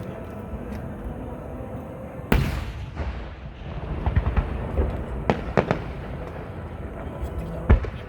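Fireworks display: one heavy boom about two seconds in, its rumble trailing off, then a run of sharp cracks and pops and another sharp bang near the end, over a background murmur of voices.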